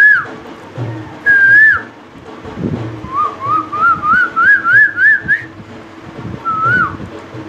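A man whistling an imitation of the Asian koel's call. There are single drawn-out notes that fall away at the end, and about three seconds in a run of about nine short notes climbs steadily in pitch.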